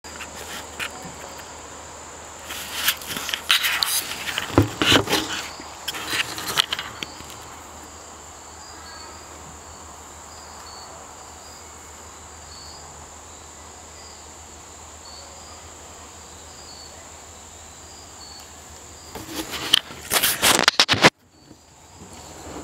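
Insects, crickets by the sound, trilling steadily on a high note, with faint chirps about once a second. Loud crackling rustles break in twice, a few seconds in and again near the end.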